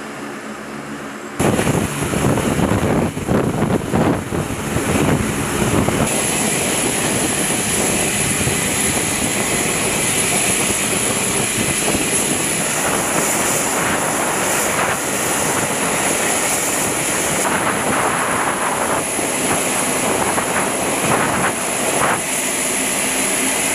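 Turbine noise from a U.S. Marine Corps KC-130J on the airfield ramp: a quieter hum with steady tones, then a sharp jump about a second and a half in to a loud, steady rushing noise with a high whine above it.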